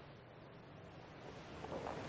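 Near silence: faint room tone, a little louder near the end.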